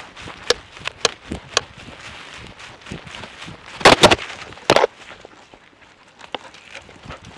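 Knocks and rustling from a camera on a dog's harness as the dog moves through forest undergrowth: single sharp clicks about half a second apart, then a cluster of loud sharp cracks about four seconds in and another shortly after.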